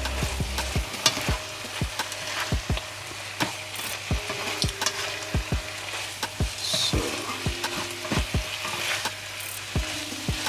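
Thick chicken sauce sizzling in a pan while a spoon stirs it, knocking and scraping against the pan many times.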